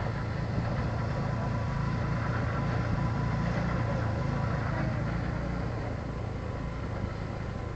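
A vehicle engine running with a steady low rumble, easing slightly about six seconds in.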